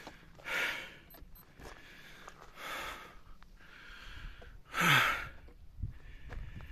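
A hiker breathing hard, out of breath on a steep uphill climb: a loud exhale about every two seconds, the loudest about five seconds in, carrying a short falling voiced sigh.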